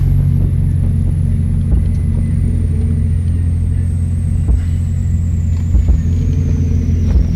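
2003 Hyundai Tiburon engine pulling in second gear, heard from inside the cabin, running unevenly with irregular stumbles: a misfire under load.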